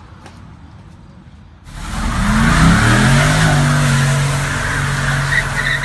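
A car engine running loud at high revs, starting suddenly about two seconds in, its pitch sliding down and then holding steady under a heavy rushing noise, and cutting off abruptly near the end.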